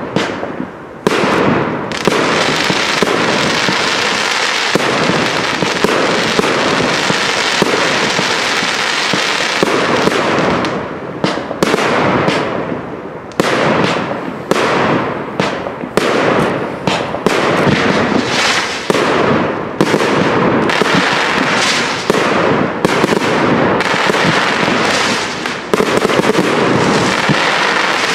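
Professional fireworks display: a rapid, continuous barrage of launches and shell bursts with hissing, crackling sparks. The barrage eases briefly about ten seconds in and again near the end.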